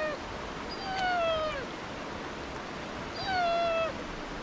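Dog whining: a string of high, drawn-out whines, each under a second long and dropping in pitch at the end, from a dog held on a stay while it strains to go to another dog. A stream rushes steadily behind.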